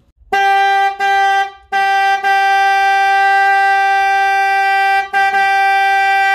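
Car horn sounding on one steady note: two short honks, then a long held blast that breaks off briefly about five seconds in.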